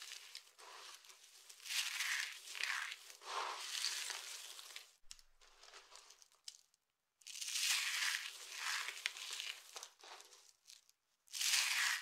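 Dry soap curls crunching and crackling as hands squeeze and crumble them, including pressed soap-curl roses, in repeated crinkly bursts. The sound pauses for about two seconds near the middle and again briefly near the end.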